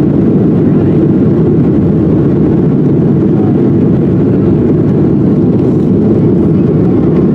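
Steady, low engine and airflow noise inside the cabin of a Boeing 737-700 in flight, its two CFM56 engines running.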